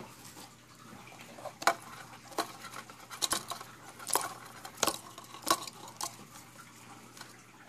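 Small plastic cup handled on a wooden table: a string of about seven sharp clicks and knocks, roughly one a second.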